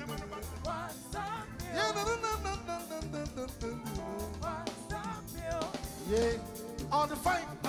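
Drum kit played along with a song: a singing voice over bass and a steady drum groove, with snare and cymbal hits.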